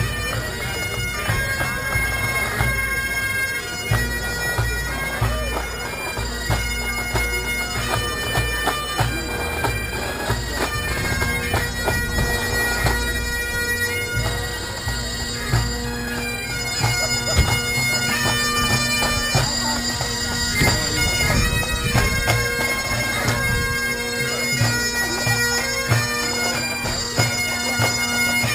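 Bagpipes playing a tune of held notes over a steady drone.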